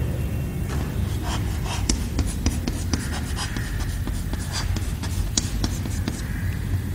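Chalk writing on a chalkboard: a quick run of short scratches and taps as letters and an arrow are written, starting about a second in.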